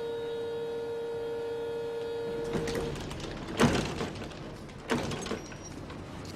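A steady buzzing tone that holds for about three seconds, then a loud knock about a second after it stops and a lighter knock a second later.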